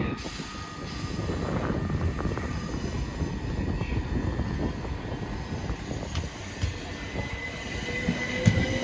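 Southern Class 377 Electrostar electric multiple unit moving along a platform: a steady rumble of wheels on track with a thin electric whine, one tone rising in pitch near the end as a run of clicks starts from the wheels over rail joints.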